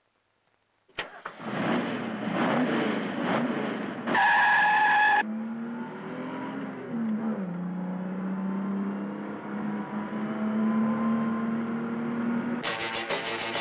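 A click as the ignition key is turned, then a race car's engine starts and revs. About four seconds in there is a loud tyre squeal lasting about a second. After that the engine runs on steadily, heard from inside the car, its pitch dropping once around seven seconds in.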